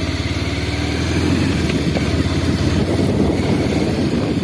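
Bajaj Pulsar 150's single-cylinder air-cooled engine running steadily with a fast, even beat as the motorcycle rides along.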